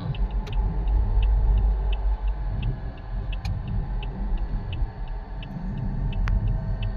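Toyota Vios running, a low uneven rumble, with a light regular ticking about three times a second and a single sharp click about six seconds in.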